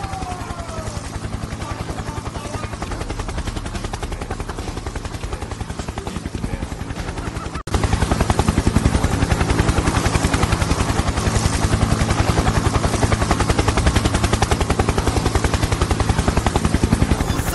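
Helicopter rotor noise: a steady, fast chop of the blades that gets louder about eight seconds in.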